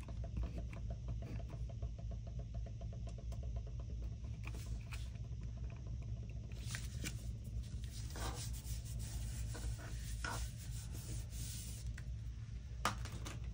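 Paper Mate DryLine correction tape being run across a paper planner page: a light, scratchy rubbing, a fine fast rasp at first, then a series of short separate strokes.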